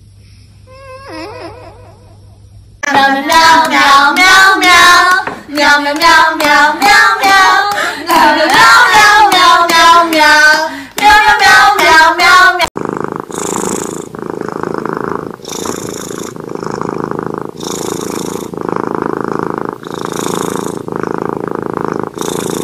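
A loud sung melody for about ten seconds, cutting off abruptly; then a cat purring steadily in rhythmic swells about a second apart.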